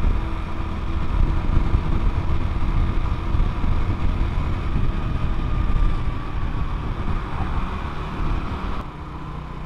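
Motorcycle riding at road speed: the engine running steadily under a dense low rumble of wind and road noise on the bike-mounted microphone, easing a little near the end.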